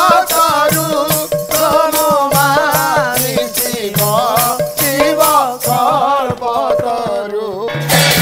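Devotional Odia pala singing: a woman's voice sings a wavering, ornamented melody over a held drone, with a steady beat of percussion strikes. Near the end the singing stops and a denser, different music begins abruptly.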